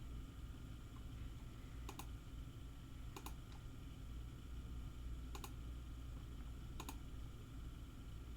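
Faint, sparse clicks of computer keys: four sharp double clicks a second or two apart, over a steady low hum.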